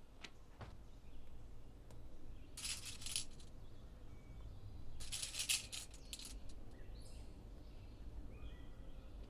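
Small hard sweets clattering in two short bursts, about three seconds in and again about five seconds in, after a couple of light clicks near the start.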